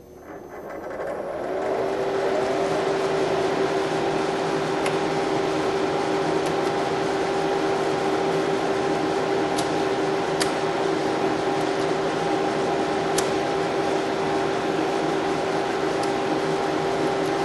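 DEC PDP-8/M minicomputer's cooling fans spinning up as power is brought up through a variac, rising in pitch over about two seconds and then running steadily with a constant tone in the noise. Several sharp clicks of the front-panel toggle switches being flipped come through over the top.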